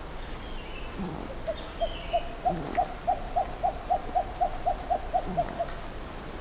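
Verreaux's sifaka giving a few soft, low grunts. Over them runs a steady series of about fifteen hoots, three to four a second, from another animal in the background.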